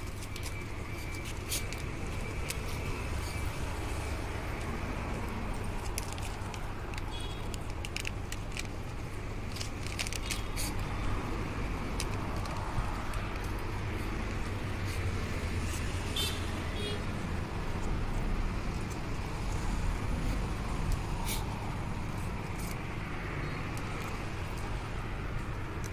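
Scattered metallic clicks and taps of hand tools on scooter engine parts during reassembly, over a steady low background rumble.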